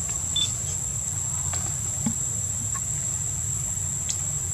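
Steady high-pitched drone of insects, over a low steady rumble, with a couple of brief high chirps just after the start.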